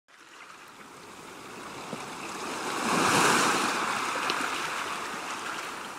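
Ocean surf on a sand beach: one wave's rush swells to a peak about three seconds in, then slowly ebbs.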